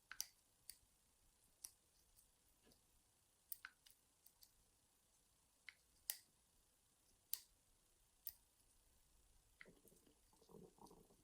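Faint, irregular clicks of a hacksaw-blade pick and tension wrench working the mushroom pin tumblers of a small Draper 30mm padlock, about a dozen sharp ticks spread out. A soft rustling scrape comes in near the end.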